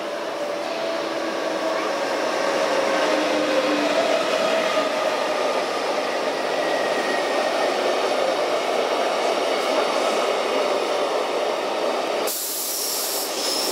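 Locomotive-hauled passenger train rolling past along an underground platform: a steady loud rolling noise from the coaches, with thin squealing tones from the wheels and brakes. A sudden hiss starts near the end.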